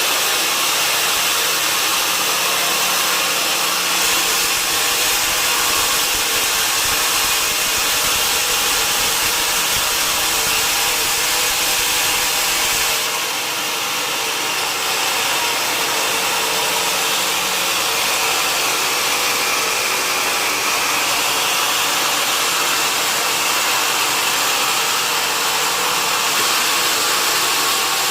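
Sawmill machinery running: a steady, loud, hissing machine noise that dips slightly about halfway through.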